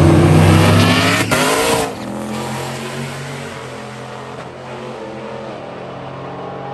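Two drag-racing vehicles, an OBS Chevy truck with a swapped supercharged LT4 V8 and a turbocharged 6.0-litre Chevy Blazer, accelerating hard at full throttle from a roll start. Their engine notes rise in pitch over the first second and a half, then the sound drops sharply about two seconds in as they pull away, trailing off down the track.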